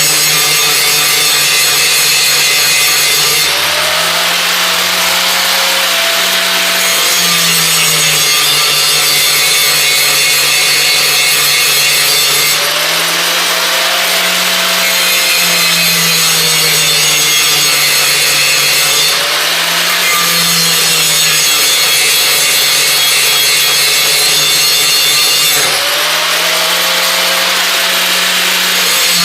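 An angle grinder is grinding steel on the edge of a brush hog (rotary mower) blade, taking heavy cuts to reshape and sharpen it. The motor hum drops in pitch and recovers every few seconds as the disc is pressed into the metal and eased off in repeated passes.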